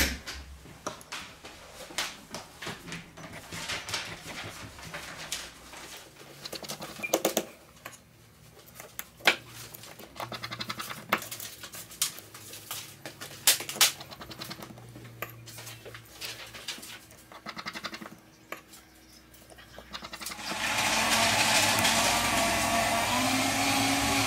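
Light, scattered clicks and taps of small phone parts and tools being handled during phone reassembly. About twenty seconds in, a steady, loud hiss with a faint whirr starts, from a small tool.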